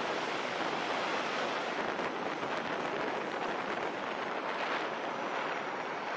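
Steady rushing roar of an F/A-18 fighter's twin jet engines in afterburner, launching off the carrier's catapult and climbing away.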